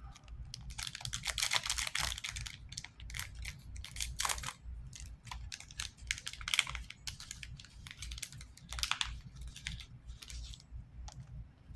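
Trading cards and pack wrapper being handled: a busy run of short, crisp clicks and rustles, densest in the first few seconds and then more scattered.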